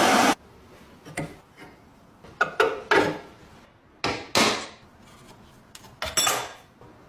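A loud, steady power-tool noise cuts off just after the start. It is followed by a handful of short knocks and scrapes as the lock and tools are handled and set down.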